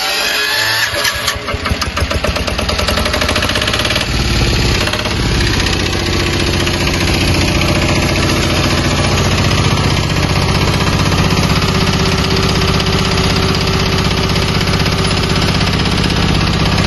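Greenland Big Bull mini tractor's diesel engine running, uneven for the first few seconds and then settling into a steady rhythm.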